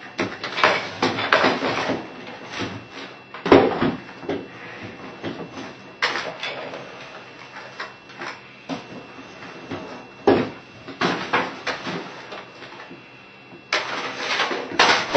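Slowed-down recording of a boy hammering on a computer keyboard and desk: irregular knocks and clatter, with the loudest hits about three and a half and ten seconds in.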